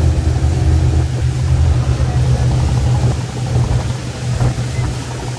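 Wooden abra's inboard diesel engine running steadily, heard from on board as a deep, even drone. It gets a little quieter about three seconds in.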